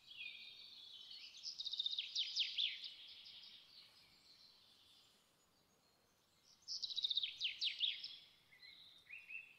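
A songbird singing: two bursts of quick, high, falling trilled notes, about a second and a half in and again about seven seconds in, with fainter chirps between and after.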